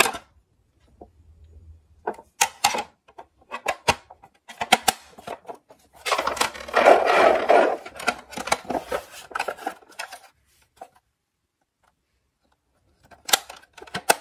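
A plastic toy ambulance being handled: sharp clicks and knocks of its plastic parts as the roof panel and rear doors are worked. About six seconds in there is a longer scraping rub lasting a couple of seconds, and after a pause the clicks come back near the end.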